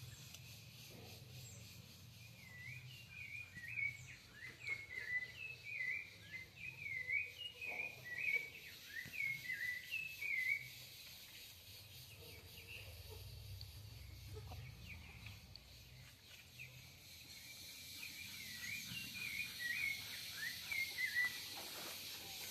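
A small bird singing runs of quick chirping notes, about two notes a second, each note dipping and rising in pitch. The runs come twice, the first lasting about eight seconds and the second starting near the end, over faint outdoor background noise.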